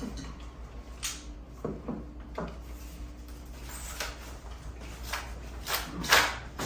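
Kitchen handling sounds: a string of short knocks and clinks about a second apart, with a louder cluster near the end.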